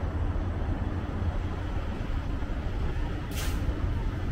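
Downtown street traffic: a steady low rumble of passing vehicles, with one short sharp hiss about three seconds in.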